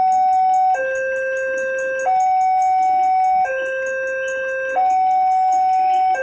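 Railroad crossing warning alarm sounding, alternating between a lower and a higher electronic tone about every one and a third seconds; the higher tone is the louder.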